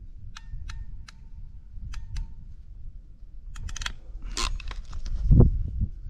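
Ratcheting wire-terminal crimper (KFCPtec KF-30J) clicking as its handles are worked on a heat-shrink butt connector: a few sharp metallic clicks with a slight ring, then a quicker cluster of clicks and a louder click about four seconds in. A dull thump from handling follows about five seconds in.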